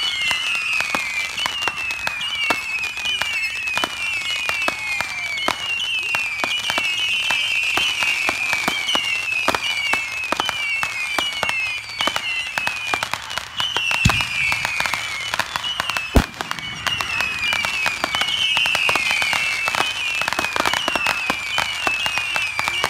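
Firework cakes firing a long, rapid volley: overlapping whistles, each falling in pitch, ring out over dense popping and crackling, with two louder bangs past the middle.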